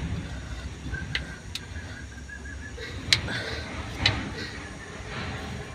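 Sharp metallic clicks and knocks from hands working a new alternator belt onto its pulley, four of them spread over a few seconds, the loudest near the middle, over a low steady rumble.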